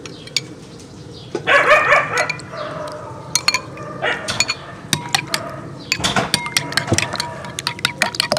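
A dog barks in the first half. Then a metal spoon clinks and scrapes against a ceramic bowl in quick, light clicks as eggs and yogurt are stirred together.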